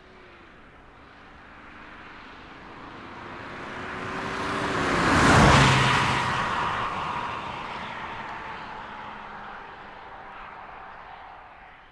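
BMW 530d E60 diesel saloon driving past: its engine and tyre noise build up, peak sharply about five and a half seconds in, then fade away, the engine note dropping in pitch as the car goes by.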